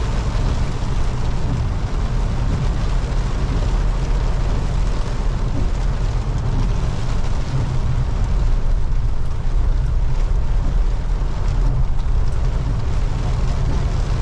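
Mahindra Bolero driving through heavy rain on a waterlogged road: a steady low engine and road rumble under a continuous hiss of rain and water.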